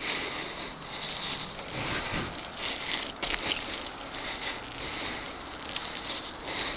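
Mountain bike rolling fast over a packed-dirt singletrack: a steady rush of tyre noise and bike rattle with wind on the microphone, and a quick cluster of sharp clicks about three seconds in.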